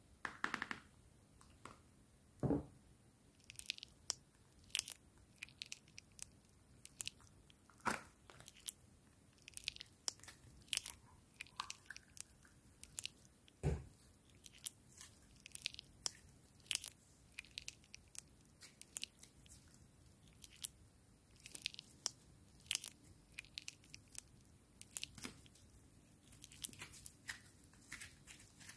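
Butter slime squeezed and pressed by hand, giving scattered small crackles, clicks and sticky pops, with two dull knocks from handling the slime jars, one a couple of seconds in and one about halfway.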